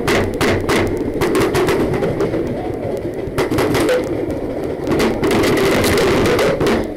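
Paintballs hitting a wooden wall in rapid, irregular strikes, sharp cracks that thicken into a dense volley about five seconds in.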